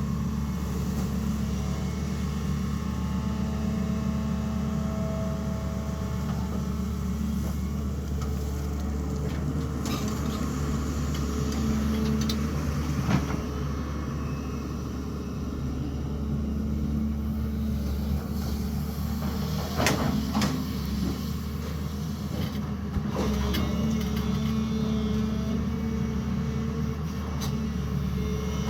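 Sany excavator's diesel engine running steadily, with a few sharp knocks and clanks along the way.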